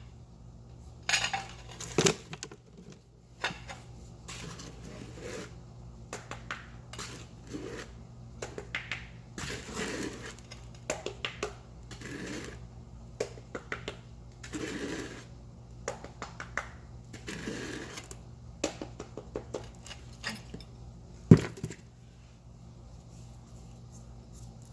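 Steel notched trowel scraping and clinking as thinset mortar is scooped and spread, in a run of short scrapes and taps, with one sharp knock about 21 seconds in.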